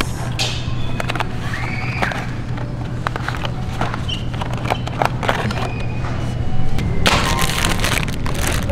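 Supermarket aisle with a steady low hum, food packages being handled on the shelf with light clicks and knocks, then loud crackling of a plastic ramen noodle multipack being grabbed about seven seconds in.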